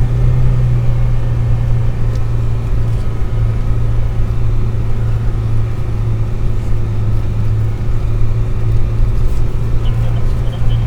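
Car engine running steadily with road rumble while driving, a strong even low hum throughout.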